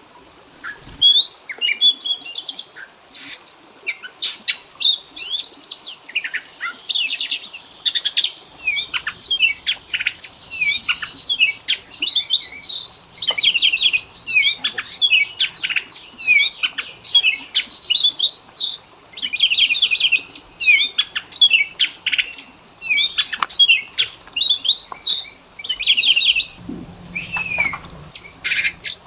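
Oriental magpie-robin (kacer) song: a dense, unbroken run of quick, varied chirps, rapid trills and whistled glides, one phrase crowding on the next.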